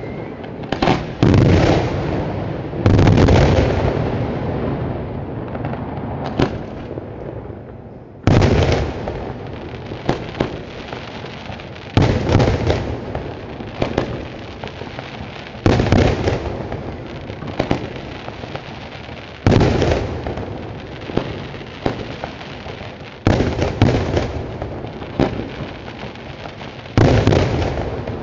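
Daytime fireworks fired from a barge: a loud aerial shell burst about every four seconds, each bang fading away over a few seconds, with smaller sharp cracks in between.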